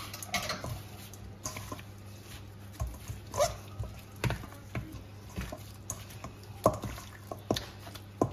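Raw chicken pieces squelching wetly as a gloved hand rubs marinade into them in a stainless steel bowl, with irregular short taps and slaps against the bowl.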